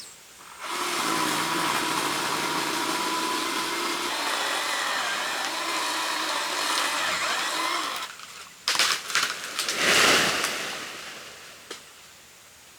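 A small motor-driven power tool running steadily for several seconds, then stopping, followed by a few sharp knocks and a short loud noisy burst that fades away.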